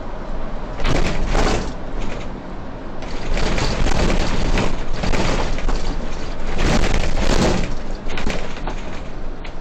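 City bus in motion heard from the driver's cab: a steady low rumble of road and engine noise, broken by several harsh crackling, rattling bursts, the longest from about three to five and a half seconds in.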